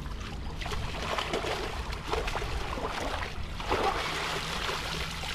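River water splashing and sloshing in irregular bursts over a steady low rumble, as a cast net is drawn in through the shallows.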